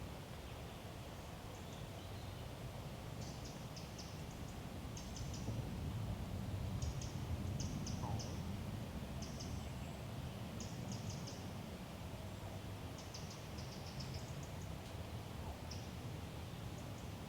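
A small bird calling in short clusters of quick, high-pitched chirps, repeated every second or two, over a steady low rumble of woodland background.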